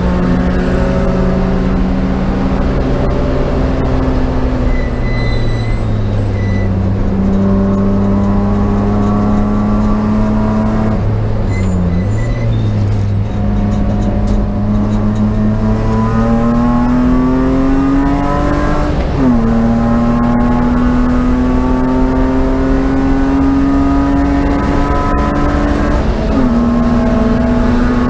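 BMW race car engine running hard at racing speed, holding steady revs, then climbing in pitch and dropping sharply at upshifts about 19 and 26 seconds in. There is a brief dip and recovery in revs about 12 seconds in.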